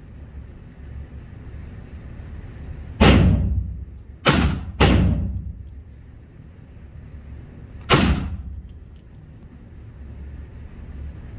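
Four gunshots, each with a short ringing decay: one about three seconds in, two close together around four and a half seconds, and a last one near eight seconds.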